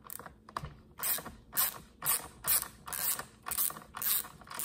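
Ratcheting screwdriver with a 4 mm hex bit clicking in short bursts, about two a second, as it backs out a bolt holding the recoil starter housing on a handheld blower.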